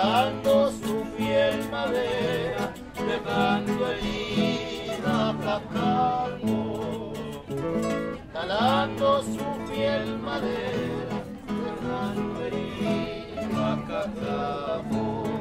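Chilean tonada played on nylon-string acoustic guitars, with a man singing over it.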